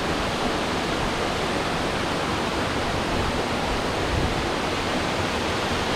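A high waterfall, about 104 m of drop, heard as a steady, even rush of falling water with no change in level.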